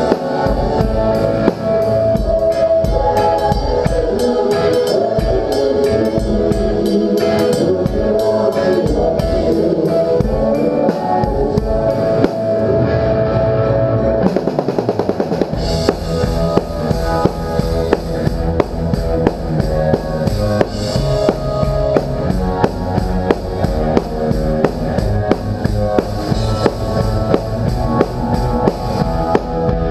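Rock band playing live, heard close up from the drum kit through a small camera's built-in microphone, drums and cymbals loudest over the rest of the band. The first half is lighter on drums; about halfway in the drums settle into a steady driving beat.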